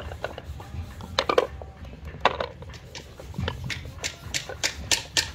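Irregular sharp taps and clicks from wooden boxes and small brass fittings being worked by hand, coming faster near the end, over a low steady rumble.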